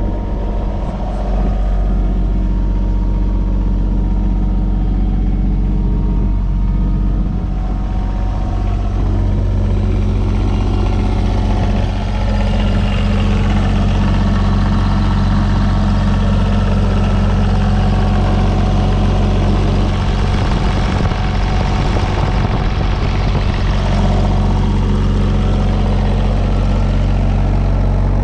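Diesel engine of a JCB 8025 mini excavator running steadily at idle, with an even low hum throughout.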